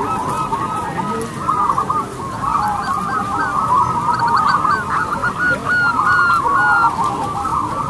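Many caged zebra doves (perkutut) cooing at once in a dense, overlapping chorus of short, bouncing notes.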